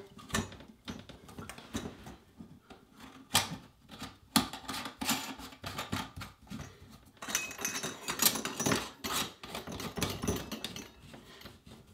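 Chrome sink drain parts being fitted by hand: irregular light metallic clicks and taps as the P-trap, extension tube and slip nuts slide together and are hand-tightened.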